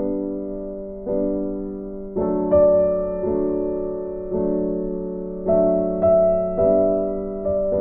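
Background music: slow piano chords, a new chord struck about once a second and left to fade.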